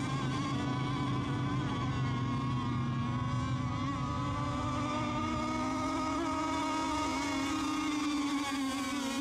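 Several radio-controlled racing boats running flat out together, their motors making a steady buzzing whine whose pitch wavers slightly as the boats run the course.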